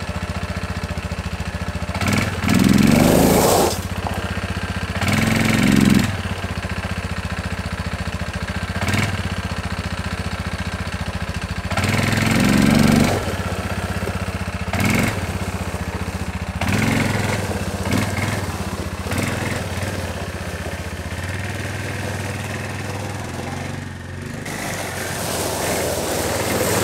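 Bashan 250 ATV engine running at idle, revved briefly several times, each rev rising and falling back, as the quad is shuffled back and forth. Near the end it picks up and pulls away. This is a test of whether drive now reaches the rear wheels.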